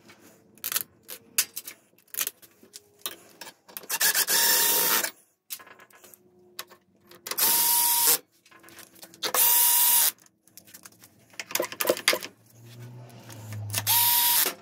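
A power tool runs in four short bursts of about a second each, a hiss with a steady whine in it. Light clicks and taps of small metal parts being handled come between the bursts.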